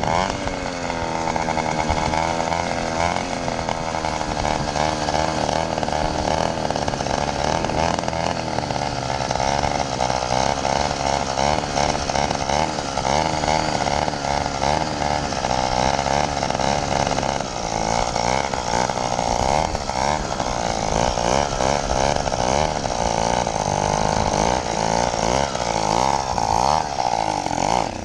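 80cc two-stroke motorized-bicycle engine running under way, its pitch rising and falling as the throttle changes.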